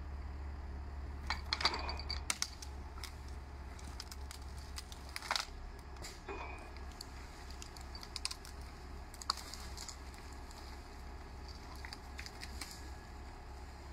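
A Valtra 8550 tractor's engine runs with a low, steady drone while the timber crane's grapple gathers branches. Irregular cracks and snaps of twigs and branches breaking sound over it, with a cluster about one and a half seconds in and sharp single snaps around five and nine seconds.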